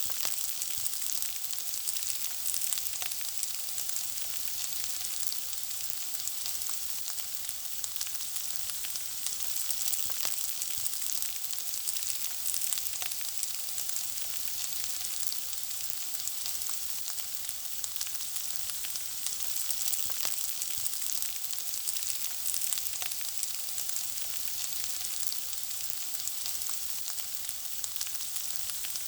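Food frying in hot oil: a steady sizzle, a dense hiss of fine pops and crackles that holds even throughout.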